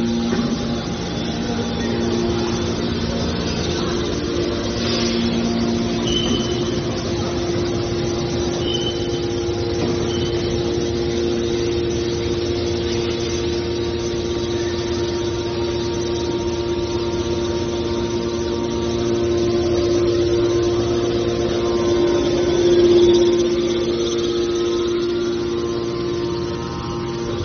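Hydraulic power unit of a scrap aluminium baler running, a steady pump and motor hum with a constant whine that swells briefly near the end.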